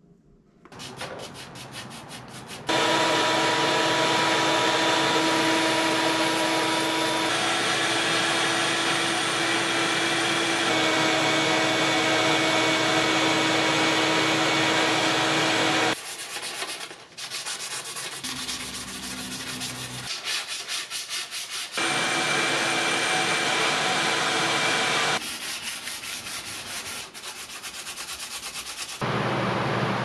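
Sandpaper sanding a bamboo bicycle frame and its wrapped joints. Stretches of quick, repeated back-and-forth scraping strokes alternate with longer stretches of steady, dense scraping, each starting and stopping abruptly.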